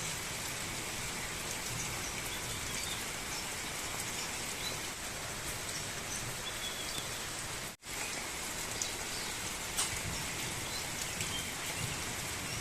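Steady rain falling, an even hiss of drops with a brief break in the sound a little past halfway.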